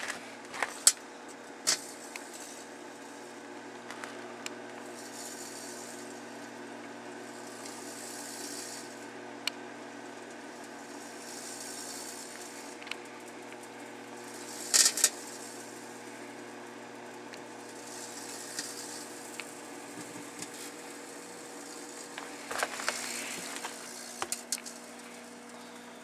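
Microwave oven running with a steady hum, while speaker parts inside it burn, with sharp crackles and pops and short hissing bursts; the loudest pop comes about halfway through, with another cluster near the end.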